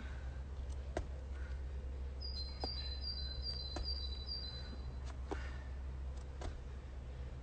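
A songbird sings a run of about six quick, high, repeated notes a couple of seconds in, over a steady low outdoor rumble. Sharp knocks land about every second or so, in time with squat thrusts on an exercise mat.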